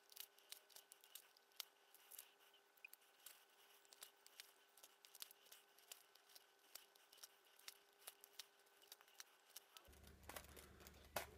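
Faint, irregular clicks and scratches of leather being saddle-stitched by hand: a needle pushed through the punched stitching holes and the thread drawn through, a few times a second. A low hum comes in near the end.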